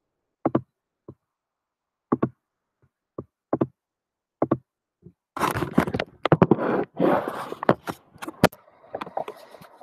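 Handling noise from computer gear at a desk. First come single sharp clicks about a second apart, then from about five seconds in a few seconds of dense clattering and knocking, trailing off into fainter clicks.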